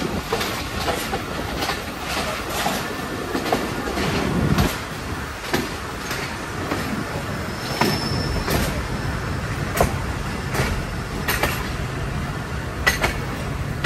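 Passenger train pulling out of a station: a steady rumble with the wheels clacking over rail joints at uneven intervals, and a brief high wheel squeal about eight seconds in.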